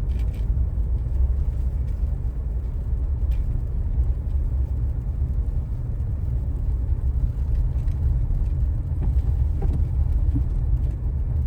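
Steady low rumble of a car being driven, heard from inside the cabin: engine and tyre noise on a snowy road.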